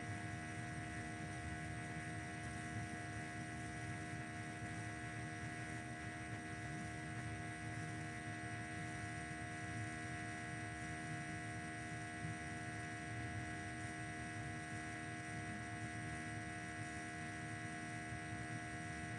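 Steady electrical hum made of several constant tones over a low background haze, with no other events.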